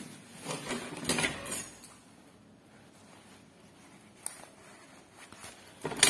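Light rustling and clinking of craft supplies being handled as a roll of tape is taken out, with a sharp click about four seconds in and a louder clatter at the end.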